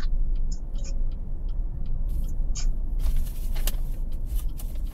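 A car driving on a road, heard from inside the cabin through a dashcam: a steady low rumble of engine and tyre noise with scattered small clicks and rattles, growing noisier with sharper clicks after about three seconds.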